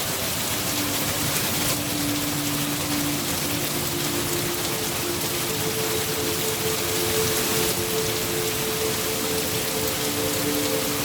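Steady rain falling, an even hiss of many drops with no breaks. Faint low held tones sound underneath, changing now and then.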